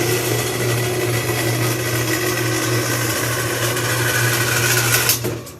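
Handheld electric power tool running steadily while cutting aluminum sheet along a marked line, its motor cutting off sharply near the end.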